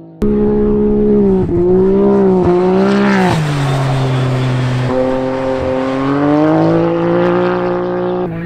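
Can-Am Maverick X3 race side-by-side's three-cylinder engine running hard at high revs. Its note dips briefly about three times in the first few seconds, drops lower, then steps up and climbs again.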